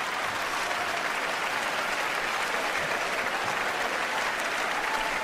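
Stand-up comedy audience applauding steadily.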